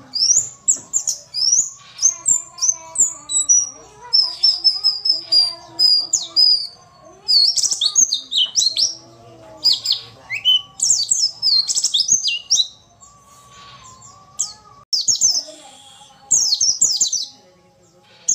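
White-eye (pleci) giving rapid, high-pitched chirps and twitters in quick bursts, with a couple of short pauses. It is a female white-eye's call, used as a lure to get male white-eyes to answer and sing.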